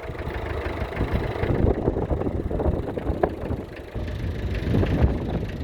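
1966 McCormick 434's 2.5-litre four-cylinder diesel engine running steadily.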